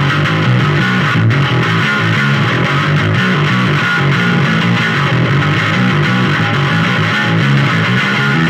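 Distorted electric bass guitar playing a fast, busy riff in heavy, loud music, the low notes changing several times a second.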